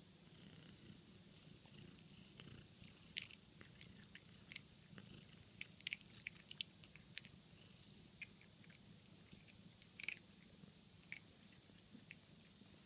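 A cat eating small dry treats out of a hand: faint, sharp crunches of the kibble, irregular and coming in short clusters, the loudest about ten seconds in.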